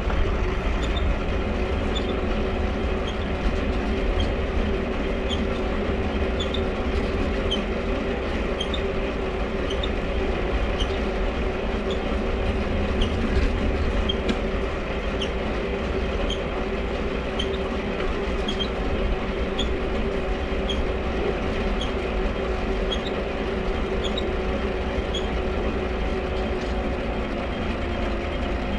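Mifa folding bicycle being ridden steadily: the bottle dynamo whines at an even pitch over tyre and wind rumble, and the crank gives a short high squeak roughly three times every two seconds as it turns.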